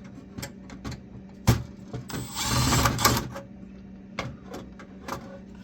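A screw being worked out of a computer's metal chassis with a screwdriver: scattered small clicks and taps, a sharp knock about one and a half seconds in, and a short rasping burst about two seconds in.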